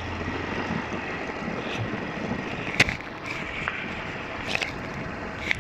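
Steady rushing wind and road noise from a Honda motorcycle under way, picked up by a phone microphone on the rider. A few sharp clicks cut through it, the loudest about three seconds in.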